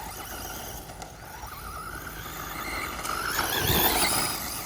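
Traxxas Rustler 2WD RC truck's electric motor and gearing whining as it speeds up, the whine rising in pitch and growing louder over the second half.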